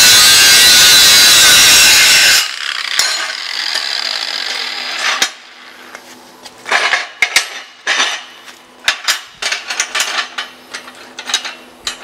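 Angle grinder with a hard grinding disc grinding mill scale off the edge of a steel plate, loud for about the first two and a half seconds, then the disc spins down once the grinder comes off the work. After that, scattered clicks and metallic clanks as the grinder is set down and the steel pieces are handled on the bench.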